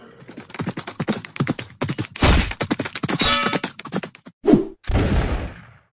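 Rifle gunfire sound effects: a fast, ragged volley of many shots, with a longer burst of noise near the end.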